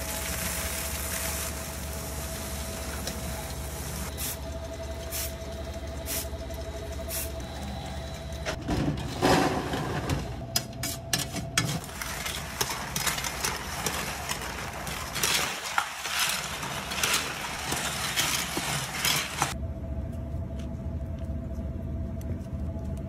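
Steady machine hum with a faint whine. Popcorn pours and rustles into a stainless-steel mixing bowl at the start. In the middle, a metal scoop scrapes and clatters through coated popcorn on a steel tray, with bursts of rustling, and then only the hum is left.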